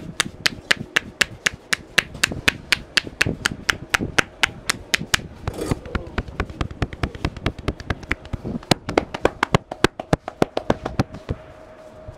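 Rapid, evenly paced hand slaps of a percussive head massage, about four to five sharp claps a second, stopping near the end.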